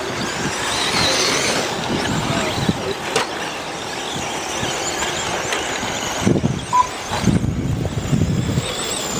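Several 1/10-scale nitro RC stadium trucks racing on a dirt track, their small engines whining high and sliding up and down in pitch as they speed up and slow down. A short beep sounds about seven seconds in.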